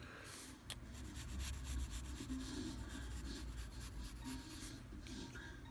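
Graphite sketch pencil scratching across lined notebook paper as it draws, the scratching coming and going with the strokes.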